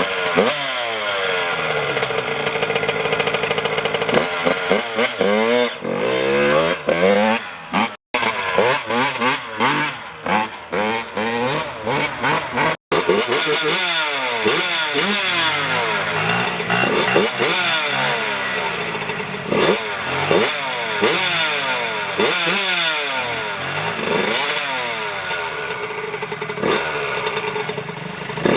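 2003 Yamaha YZ85 two-stroke dirt bike engine with an FMF Shorty silencer, revved over and over, its pitch rising and falling many times. The sound cuts out for an instant twice.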